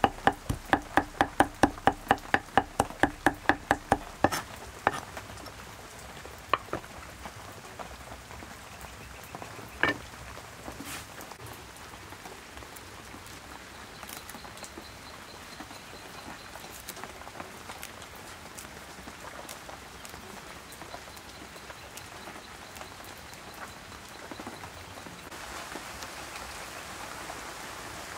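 Steel cleaver chopping rapidly on a round wooden chopping block, about four strokes a second, mincing; it stops about four seconds in. After that only a steady soft hiss with a few light clicks, which grows a little louder near the end.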